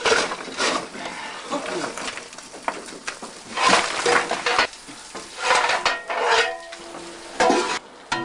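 Shovel scraping and coal clattering on a steam locomotive's tender as the coal is worked forward, in repeated strokes with brief metallic ringing between them.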